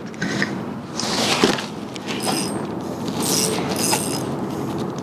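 Spinning reel being worked against a hooked pink salmon: the reel's mechanism whirs in several short bursts as line is fought in and out.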